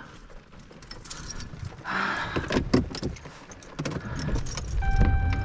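Keys jangling and clicking inside a pickup truck's cab. Near the end a low engine rumble builds and a steady electronic warning chime starts sounding.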